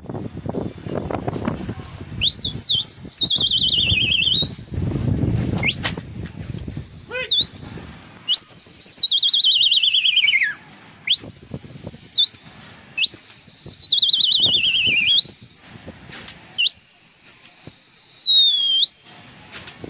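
A person whistling loudly to flying pigeons: six long, high whistles, each one to two seconds long. They alternate between a rapidly warbling note that slides downward and a note held steady that drops off at the end.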